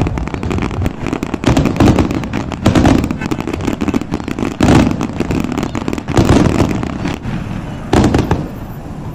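Fireworks display going off: a dense, continuous run of bangs and crackling, with a handful of louder booms standing out at irregular intervals.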